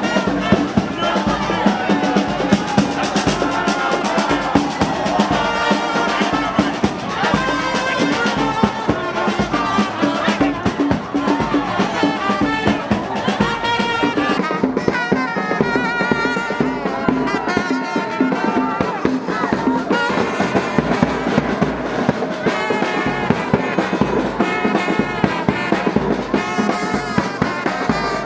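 Music with brass instruments, trumpets and trombones, over a steady drum beat.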